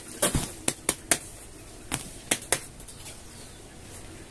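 A quick run of about eight sharp taps and knocks in the first two and a half seconds, from hands handling a plastic flowerpot with a freshly repotted begonia while settling its soil.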